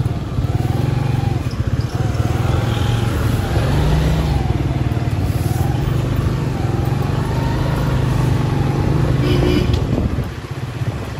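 Motorcycle engine running steadily, its pitch wavering slightly, then easing off about ten seconds in.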